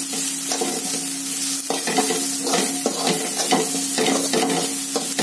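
Sliced onions, green chillies and ginger-garlic paste sizzling in hot oil in a kadai, with a spatula scraping and stirring through them about twice a second. The paste is being fried until its raw smell goes.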